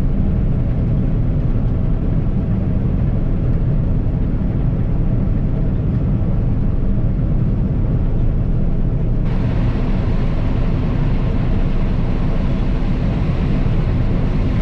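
Combine harvester running steadily as it starts harvesting soybeans: a constant low machine drone with a steady hum. About nine seconds in, a higher hiss joins and stays.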